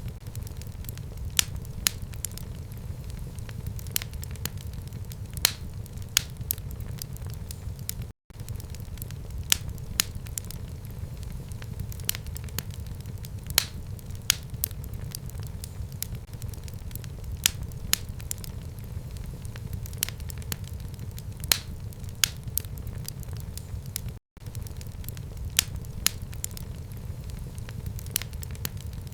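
Fire burning in a fireplace: a steady low rumble with frequent irregular sharp crackles and pops. The sound cuts out to silence for a split second twice.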